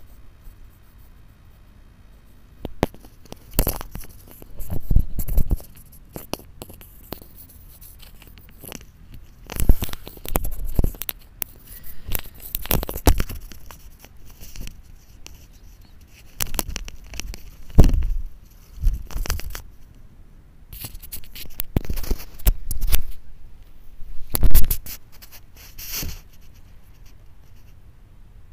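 A cat biting and pawing at a microphone cable, picked up through the microphone itself: irregular bursts of scraping, rustling and sharp knocks, a few seconds apart.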